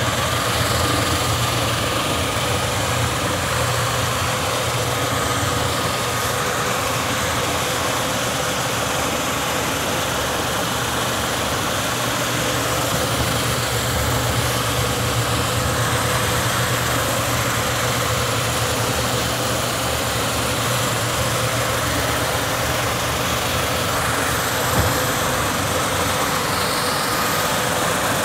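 American Sanders Epoch hybrid floor buffer sanding a cupped hickory floor panel with a multi-head sanding plate and 40-grit abrasive, its dust-collection vacuum running with it. It starts right at the beginning and runs steadily: a low motor hum and the noise of the abrasive on wood, under a constant thin whine.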